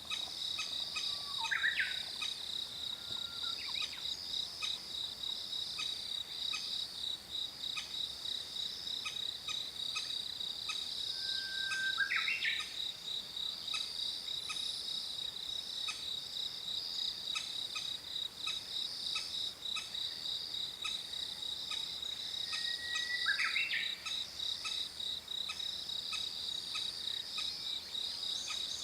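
Crested kingfisher calling three times, about ten seconds apart, each a short harsh call, over a steady high insect trill. The adult is holding food and calling to lure its chick to the nest-hole entrance.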